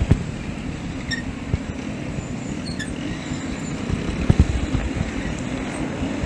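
Wind buffeting the microphone of a chest-mounted action camera on a moving mountain bike, over the rumble of tyres and nearby motorcycle traffic on the street, with a thump about four seconds in.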